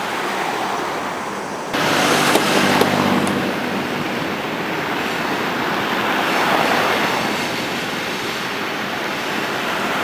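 Steady street traffic noise, louder from about two seconds in, with a motor vehicle's engine passing over the next couple of seconds.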